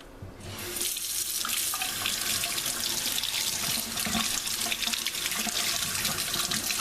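Water running from a tap to wet a soldering iron's cleaning sponge. It starts about half a second in, then runs steadily.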